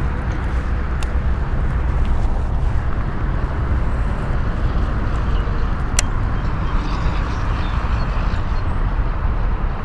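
Steady low rumble of road traffic, with a faint click about a second in and a sharp click about six seconds in.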